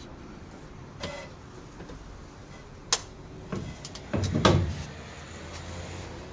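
A few scattered clicks and knocks: a sharp click about three seconds in, then a louder run of bumps and rubbing a second later, over a faint steady background.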